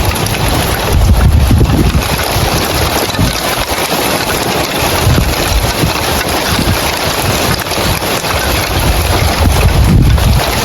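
Heavy rain falling on roof tiles, a dense steady hiss, with low rumbling gusts of wind on the microphone swelling about a second in and again near the end.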